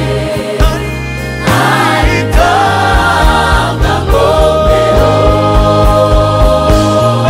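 Gospel choir singing with a live band of keyboard, guitar and drum kit. The drum beat comes in about a second and a half in, and the voices hold one long note through the second half.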